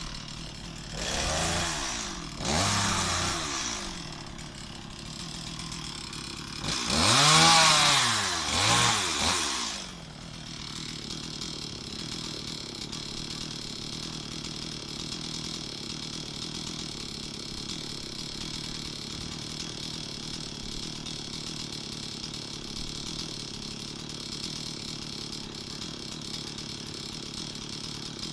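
Stihl MS 260 two-stroke chainsaw revved up and back down twice briefly, then revved harder for about three seconds, then settling into a steady idle.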